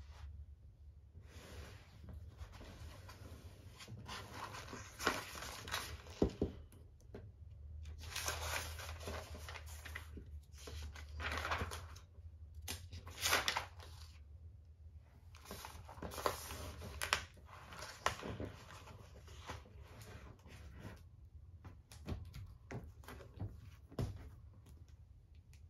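Pages of a large hardcover textbook being turned, paper swishing and rustling again and again, with a few sharp knocks as the books are handled and set down on a desk.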